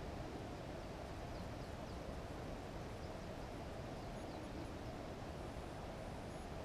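Steady outdoor background hiss, with a few faint, high, short bird chirps in the distance at several points.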